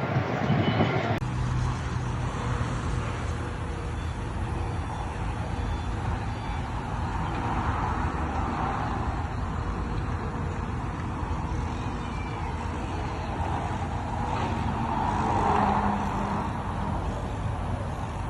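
Road traffic ambience: a steady rumble of traffic noise, with vehicles passing that swell up and fade twice, about halfway through and near the end.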